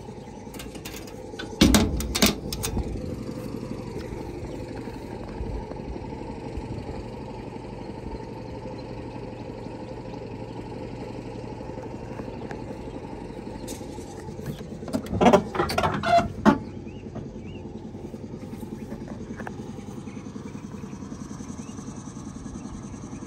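A heavy truck's engine idling steadily. Loud metal clunks and rattles come twice, about two seconds in and again about fifteen seconds in, the second fitting the cab door being unlatched and swung open.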